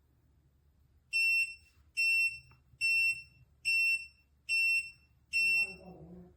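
High-pitched electronic alarm beeper sounding six short, loud beeps, evenly spaced a little under a second apart.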